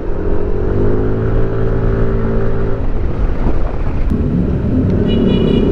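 Yamaha NMAX 155 scooter's engine running under way, its note rising slightly about a second in and then holding steady, with wind rushing over the microphone.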